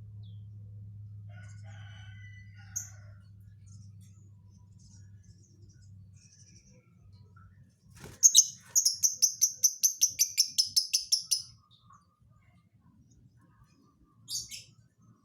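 Lovebird singing: a sharp call, then a loud, fast trill of high repeated notes, about eight a second for some three seconds, and one short high call near the end. Fainter lower calls come before it.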